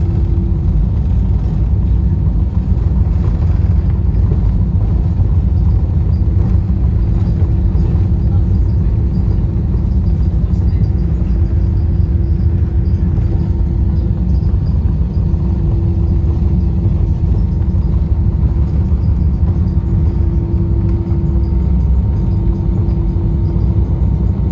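Steady low rumble in the cabin of an Airbus A320-214: the noise of its CFM56 engines and the airflow, with a steady hum over it.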